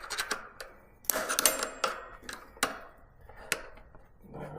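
Long-nose pliers clicking and scraping against the metal parts of an e-bike's rear disc brake caliper: a string of irregular sharp clicks, with a brief scrape about a second in.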